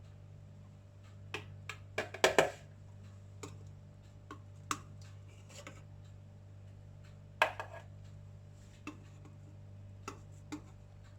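Light clicks and clinks of kitchen utensils against a steamer tray and plate as steamed momos are lifted out, with a louder clatter about two seconds in and another past seven seconds.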